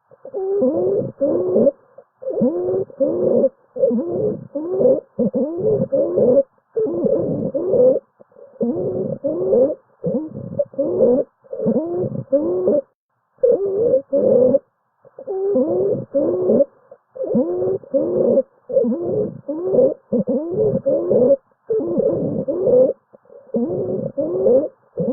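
Wheezing lung sounds: musical, pitched tones that bend in pitch, coming in short bursts repeated about once a second with brief gaps.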